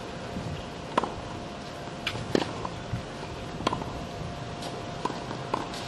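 Tennis shoes landing and pushing off on a hard court during walking lunges: a few sharp, irregular taps and short scuffs. A faint steady hum runs underneath.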